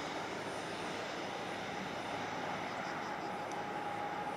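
ATR 72-500's twin Pratt & Whitney Canada PW127 turboprops at takeoff power during the takeoff roll: a steady rush of engine and propeller noise, with a steady high whine coming in about a second in and holding.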